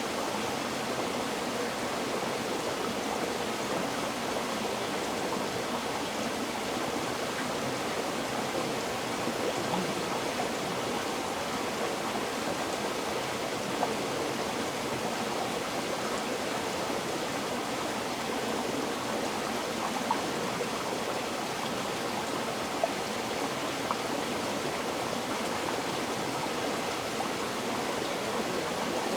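River water flowing in a steady rush, with a few faint splashes or ticks now and then.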